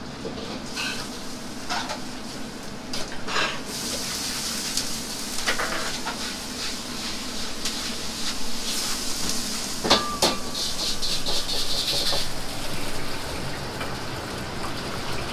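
Hot oil sizzling steadily as chicken deep-fries in a wok, with scattered metal clinks of kitchen utensils. One sharp clink about ten seconds in rings briefly.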